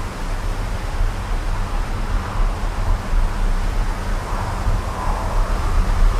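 Strong gusty wind buffeting the microphone in a heavy low rumble, with a hiss that swells and eases as the gusts come and go.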